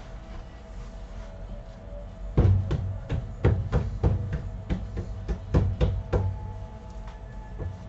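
Dough pieces being handled on a baking bench make a run of irregular knocks and thumps. They start a couple of seconds in, as floured pieces are pressed down and set on a metal baking sheet, over a faint steady machine hum.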